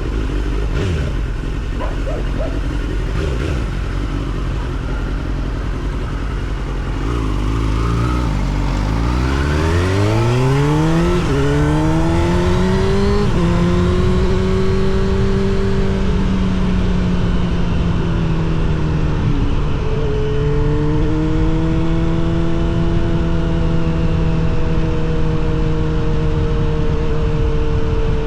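Suzuki GSX-R750 SRAD's inline-four through a Yoshimura R77 exhaust, ridden on the road. It starts as a low rumble, revs up with a rising pitch about a third of the way in, shifts up, then holds a steady cruising note, briefly dipping and picking up again past the middle.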